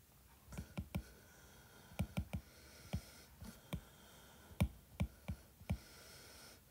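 Stylus tip tapping and clicking on a tablet's glass screen during handwriting: a dozen or so light, irregular clicks.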